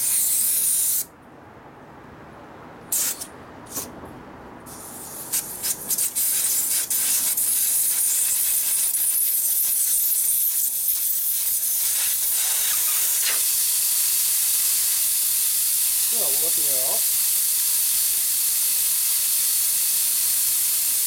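Air hissing out of a large 12.00-16 truck tire's valve stem as the tire is deflated. The hiss cuts off about a second in, comes back in a few short spurts, then runs steadily from about seven seconds on.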